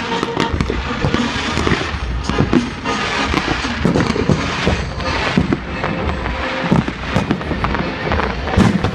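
Fireworks going off in rapid succession, many sharp bangs and crackles overlapping, with music playing underneath.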